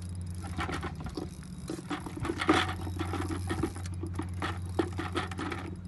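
Spinning reel (a Shimano Sienna 2500FD) clicking and rattling in quick irregular ticks while a hooked fish is reeled in against the bent rod. A steady low hum runs underneath.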